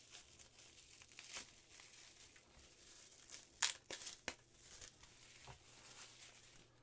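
Plastic packaging crinkling as resin model kit parts are unwrapped and handled, with a few sharper crackles, the loudest about three and a half seconds in.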